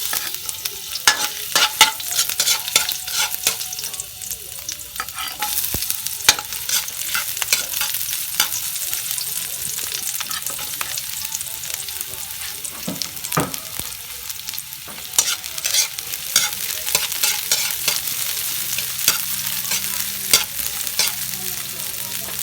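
Frog meat frying in hot oil, sizzling with many sharp crackles and pops, while it is stirred in the pan.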